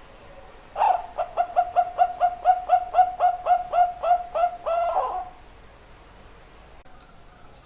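Zebra dove (perkutut) cooing: a fast run of short coos at one steady pitch, about five a second, ending in a longer drawn-out note.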